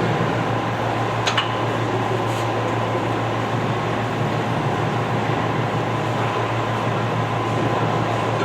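Rubber stripper ring grinding machine running steadily: an even hiss over a constant low hum with faint steady high tones, and one small click about a second in.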